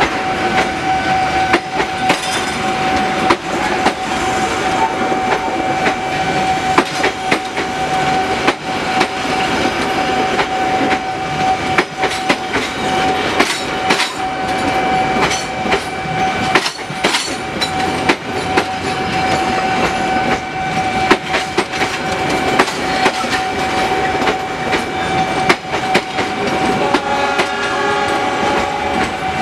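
Passenger train coaches passing at close range, the wheels clattering and knocking over the rail joints. A steady high warning tone from the level crossing sounds all the while.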